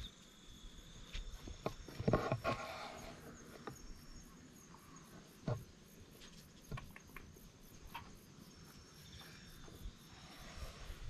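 A steady high-pitched insect trill, fading after a few seconds and returning faintly near the end, with scattered soft knocks and a brief rustle about two seconds in.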